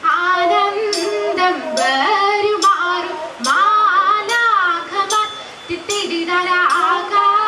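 Group of girls singing a Malayalam margam kali song together, with sharp strikes keeping the beat every second or so.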